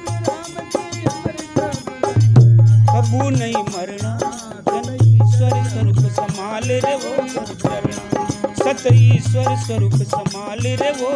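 Devotional bhajan music in a folk style: drum strokes and a jingling, rattle-like percussion keep a quick, steady beat under a melody line that bends up and down.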